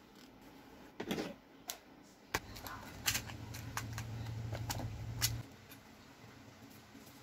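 Paper rustling as a printed card sheet is handled, then a run of sharp clicks and light rattles as fingers pick through small parts in a clear plastic compartment box. A low steady hum sits under the clicks for about three seconds and cuts off suddenly.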